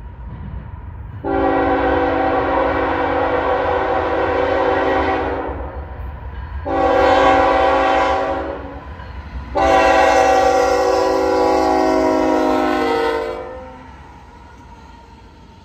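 Canadian National (CN) diesel locomotive's multi-tone air horn sounding three blasts, long, short, then long, as the train approaches and reaches a road grade crossing. This is the closing part of the standard grade-crossing horn signal. The locomotive's engine and the train's rumble run underneath, and the horn cuts off as the lead unit occupies the crossing.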